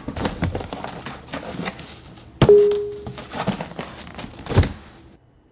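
A box being handled close up: rustling and a run of knocks, with a sharp knock about two and a half seconds in that leaves a short ringing tone, and a heavier thunk near the end before it goes quiet.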